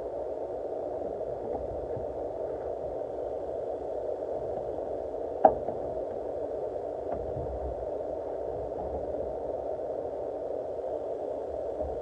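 Steady background hum with a single sharp click about halfway through, as a ratcheting wrench works a taillight mounting bolt.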